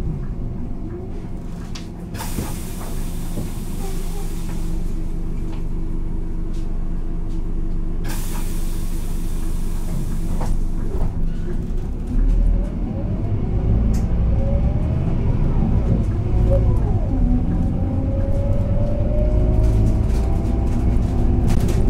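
Scania K230 city bus's diesel engine running, with two loud hisses of compressed air about two and eight seconds in. About halfway through it gets louder as the bus pulls away, with engine and ZF gearbox whines rising in pitch.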